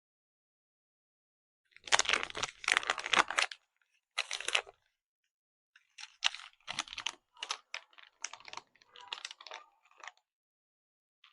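Plastic packaging being handled while packing an order: a loud stretch of crinkling and rustling about two seconds in, a short burst just after, then a run of shorter crinkles and clicks.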